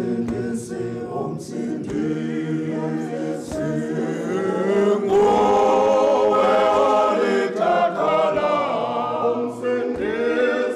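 A group of men singing together unaccompanied, several voices at once, swelling louder from about five seconds in.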